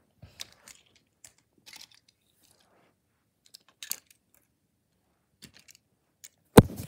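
Handling noise as a handheld camera and small toy cars are moved about over a rug: scattered light clicks and taps, a small cluster about four seconds in, and a sharp loud click near the end.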